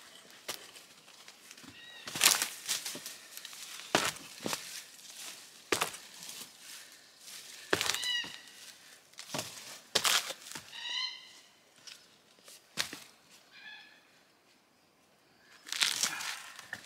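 Sharp axe blows striking a log about every two seconds, knocking loose a chainsaw-cut round. Between the blows an animal gives a few short, high calls.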